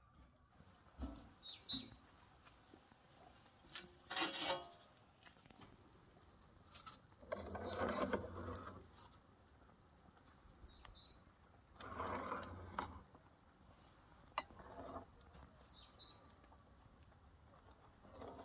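Metal scraping and clattering in several separate bouts as a steel door plate and a metal baking tray are handled at the mouth of a wood-fired clay dome oven. Short bird chirps sound faintly in between.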